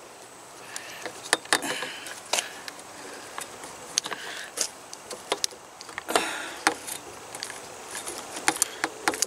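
Irregular small clicks, taps and rustles of hands working a bolt into a scooter's plastic handlebar switch housing, with a louder cluster of clicks about six seconds in.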